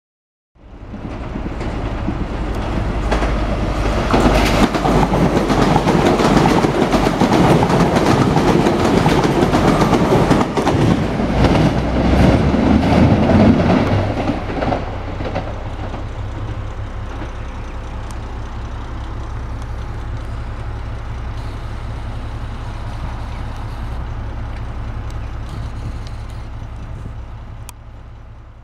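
Diesel-hauled train passing close by, its wheels clattering over rail joints and the engine running. It is loudest in the first half, then settles to a steadier low drone that fades out near the end.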